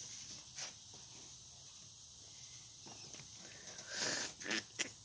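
Quiet, with faint rustling and small clicks as a white cotton sheet is handled, and a short louder hiss of noise about four seconds in.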